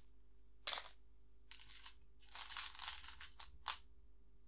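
Small plastic Lego Technic pieces clicking and rattling as a hand sifts through them in a plastic tub: a sharp click about half a second in, a run of rattling in the middle, and another sharp click later on.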